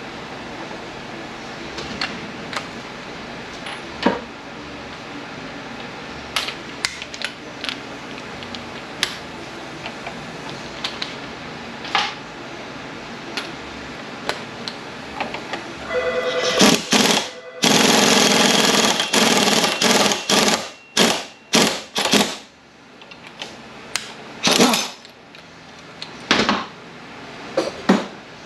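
Impact wrench hammering a puller's forcing screw against the shaft of an MT82 six-speed manual transmission, pulling off the flange. It comes in bursts from about halfway through: a brief whirr, one long run of several seconds, then several short bursts. Before that, scattered light clicks of tools being handled.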